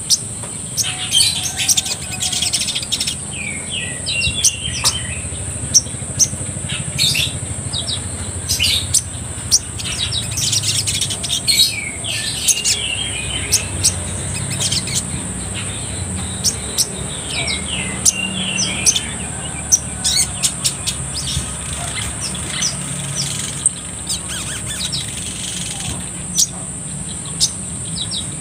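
Male olive-backed sunbird singing: a busy run of sharp high chirps and short rapid trills, with a steady high tone underneath throughout.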